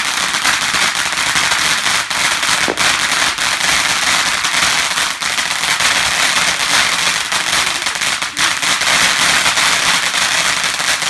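A firework still going off, giving a dense, unbroken crackle of many rapid small pops with a few sharper cracks among them.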